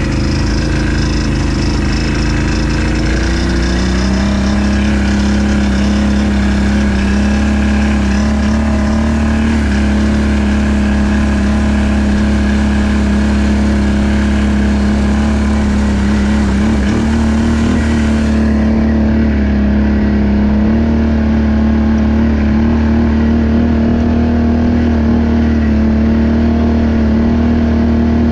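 ATV engine running steadily under way; its pitch climbs about three to four seconds in and then holds level.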